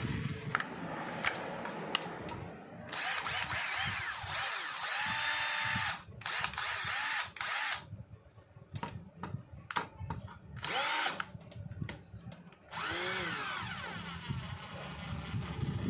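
Freshly restored XVNT 12 V cordless drill's small motor run on the trigger again and again, whining up to speed and winding down with each pull. There are a few longer runs, and a string of short bursts in the middle.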